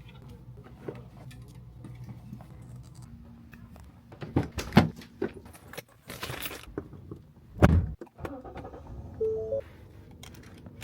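Keys jangling with a run of knocks and thumps, the loudest a little past the middle, and a brief rushing noise between them, like someone handling things while getting into a car.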